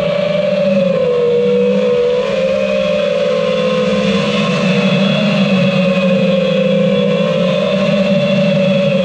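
iFlight Titan DC5 FPV quadcopter's brushless motors and propellers making a steady buzzing whine while cruising, the pitch dipping and rising a little as the throttle shifts.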